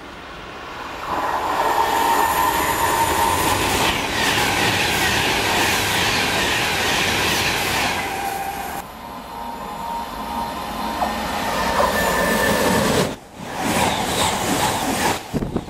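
Class 390 Pendolino electric train running through the station at speed: a loud rush of wheels on rail and air that builds about a second in and stays loud for many seconds. Near the end it drops away sharply and picks up again as a second train rushes past close by.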